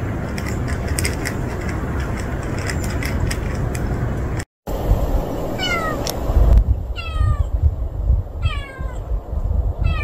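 Street cat meowing four times, about a second and a half apart, in the second half. Before that there is a steady background rumble with faint clicks.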